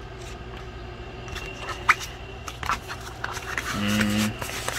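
Paper pages of a booklet being handled and turned, giving a few sharp scrapes and clicks, with a brief low hum about four seconds in.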